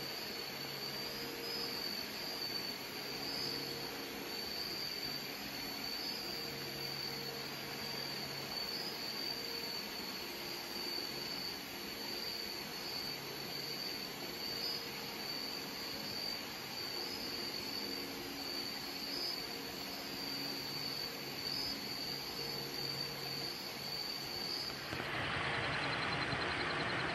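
Night rainforest ambience: a steady, high-pitched insect chorus over a background hiss, with low humming notes that come and go in spells of a few seconds. Near the end the insect whine stops and gives way to a louder, even hiss.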